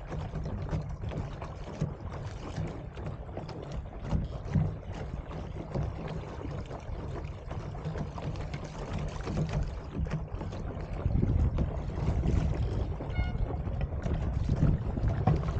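Wind buffeting the microphone over water lapping and splashing against the hull of a small Sunfish sailboat under way. The wind rumble grows louder about two-thirds of the way through.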